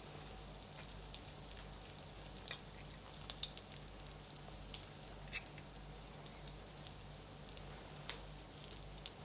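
Faint, scattered clicks and light clinks of a metal spoon against a plate as a potato patty is cut and scooped, over a steady low hum.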